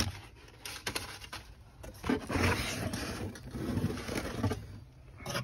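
Crumpled kraft packing paper and a cardboard box rustling and scraping in uneven bouts, with a few knocks, as a desiccant air dryer is handled and lifted out of its box.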